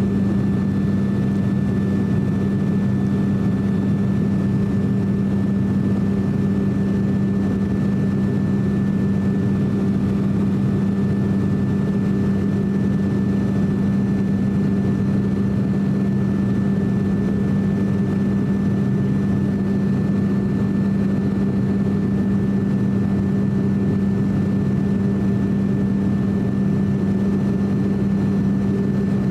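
Steady propeller drone of an ATR 42-600 turboprop in flight, heard inside the cabin: its Pratt & Whitney PW127 engines and propellers running at constant power, with a strong, even low hum.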